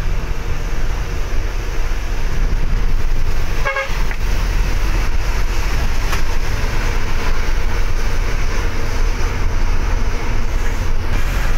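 Steady engine and road noise of a moving bus heard from inside, with a deep rumble, and a vehicle horn tooting.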